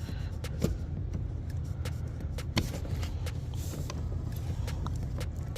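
A plastic car door trim panel being lifted off the door and handled: scattered clicks and knocks, the clearest about half a second and two and a half seconds in, over a steady low hum.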